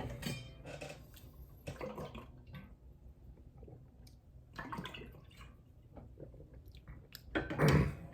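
Close-miked chewing and wet mouth sounds of someone eating, in scattered short bursts, with a louder mouth sound near the end.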